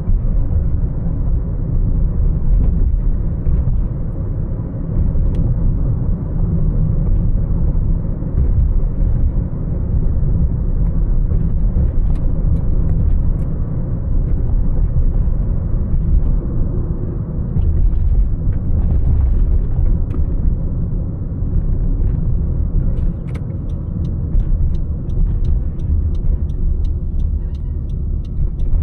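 Car driving, a steady low rumble of road and engine noise. Near the end a regular ticking starts, about two clicks a second.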